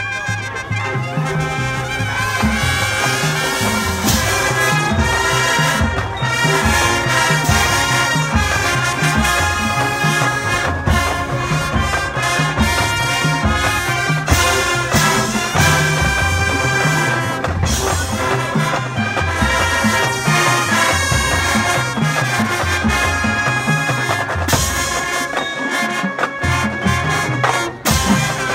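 Marching band playing its field show: brass carrying the melody over a steady drum beat.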